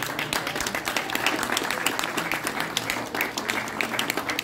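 Audience applauding, with one pair of hands clapping close by.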